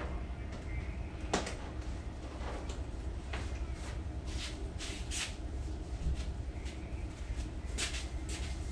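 Scattered sharp metallic clicks and clinks from the greased roller drive chain being handled and fed over the sprockets, over a steady low hum. There is one loud click about a second and a half in, and a cluster of clinks in the middle.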